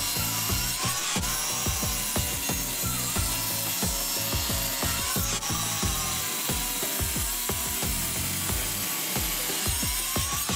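Kobalt miter saw's spinning blade cutting through a maple block. Its whine dips in pitch a few times as the blade is pushed into the wood. Background music plays under it.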